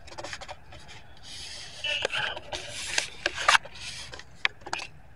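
Dry fallen leaves rustling and crunching in a run of short scrapes, busiest in the middle, as someone moves through leaf litter.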